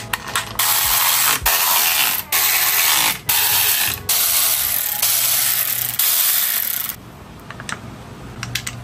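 Ratchet fastening an engine cover onto the motorcycle, running in several short spells about a second long with brief pauses, then quieter near the end.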